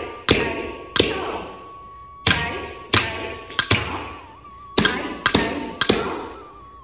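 Bare feet stamping flat on a wooden floor, with ankle bells jingling at each strike: Bharatanatyam thattadavu footwork. The stamps come in sets of three about two-thirds of a second apart, with a longer gap between sets.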